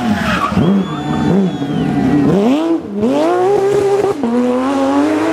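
Porsche 911 GT3's flat-six engine at full racing revs on a rally stage, its pitch dropping sharply and climbing again several times as it shifts gears, brakes and accelerates hard.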